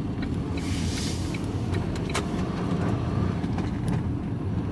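Steady engine and road rumble of a vehicle being driven, heard inside the cab, with a brief hiss about a second in.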